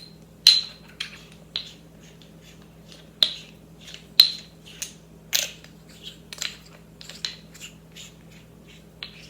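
Metal parts of a survival hiking-pole multi-tool clicking and clinking together as its hammer head is taken apart and refitted in a different configuration: irregular sharp metallic clicks, some with a short ring.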